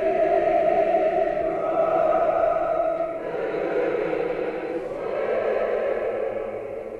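Choir singing Orthodox liturgical chant in long held chords, moving to a new chord about three seconds in.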